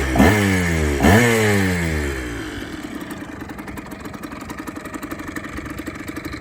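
1995 Yamaha DT 80 LC II's single-cylinder two-stroke engine, freshly rebuilt and running through its original resonator and a modified Giannelli silencer, revved in two sharp throttle blips with the revs falling away after each, then settling to a steady idle.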